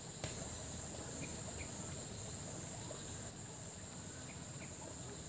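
Steady, high-pitched drone of an insect chorus, with one click shortly after the start.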